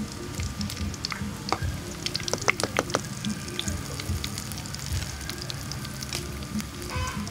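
Hot oil sizzling and crackling in a wok of deep-frying pork chops. A few sharp clicks from metal tongs come about one and a half to three seconds in.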